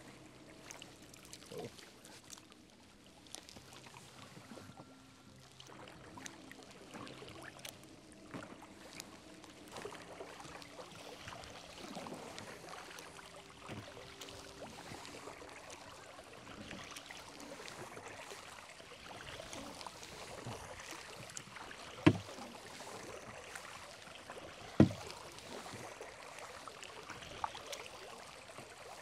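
Kayak paddling: paddle strokes through still water, with dripping and splashing. Two sharp knocks stand out, about three-quarters of the way through and again a few seconds later.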